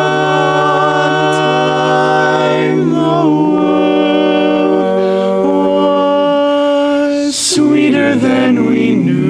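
Male barbershop quartet singing a cappella in four-part harmony, holding long sustained chords that change a few times. A brief hiss cuts through about seven seconds in.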